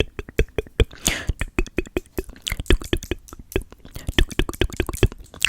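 Wet ASMR mouth sounds close to the microphone: a fast, uneven run of sharp clicks and smacks, with a brief breath or whisper about a second in.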